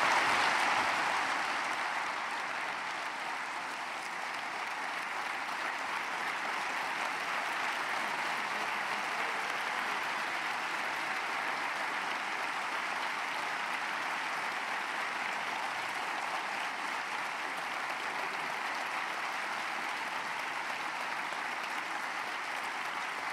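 Large theatre audience applauding in a standing ovation: dense, steady clapping, loudest at the start and easing slightly over the first few seconds before holding even.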